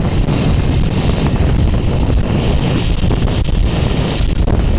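Wind buffeting the microphone while riding in the open behind a moving truck, over a loud, steady low rumble of the vehicle on the road.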